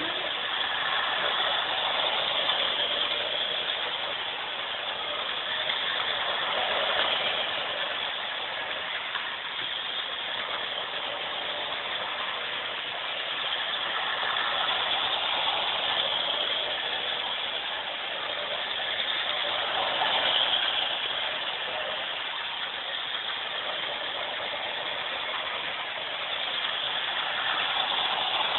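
O-27 gauge electric model train running steadily on its three-rail tubular track, the sound growing louder and softer several times as it circles the loop.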